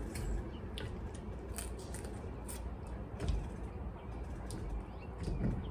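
Hands picking through boiled blue crabs in a plastic tub: scattered small clicks and cracks of shell, over a steady low background rumble.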